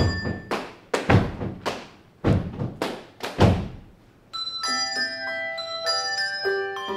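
A handbell ensemble's break of unpitched percussive hits, about a dozen in a syncopated rhythm, each trailing off in the hall's echo. About four seconds in, the handbells ring sustained chords again.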